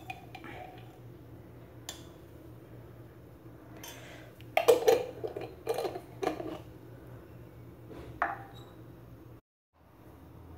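A metal spoon clinking and scraping against a glass jar of minced garlic in oil, a cluster of ringing clinks a few seconds in, then the jar's lid knocked and screwed on. The sound drops out briefly near the end.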